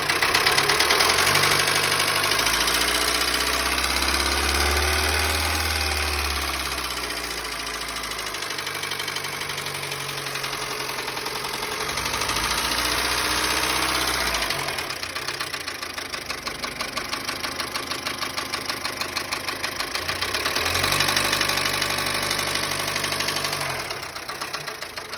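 Dacia Sandero engine running with a rapid, even knock that carries on as the revs rise and fall, revved up three times. The engine had run with its oil below minimum and the knock persists after topping up, with the uploader's tags pointing to camshaft damage from running dry.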